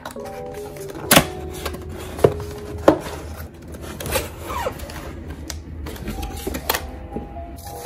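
Cardboard box being opened: its locking tabs pop free and the flaps snap and scrape open in several sharp clicks, the loudest within the first three seconds, with cardboard rustling between them. Soft background music with held notes plays underneath.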